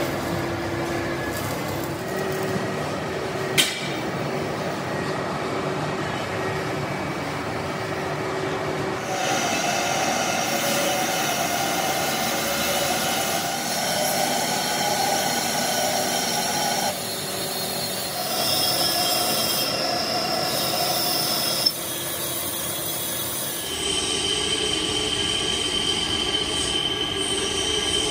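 Vertical lathe turning a grey cast iron V-belt pulley, the single-point tool cutting into a belt groove: a steady metallic screech with held high whining tones over the machine's running noise. The whine changes pitch abruptly a few times, and there is a sharp click about three and a half seconds in.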